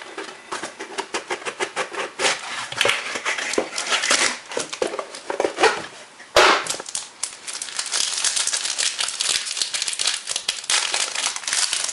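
Packaging crinkling, crackling and tearing as a sealed box of trading cards is opened by hand, with one sharp snap about six and a half seconds in.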